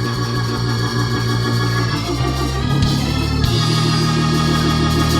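Church organ playing held chords over a moving bass line, the chords changing about two seconds and three and a half seconds in.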